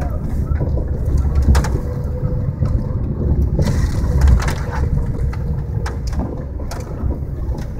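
Car driving slowly over a snow- and ice-covered road, heard from inside the cabin: a steady low rumble with repeated knocks and crunches from the tyres and body over the rough surface.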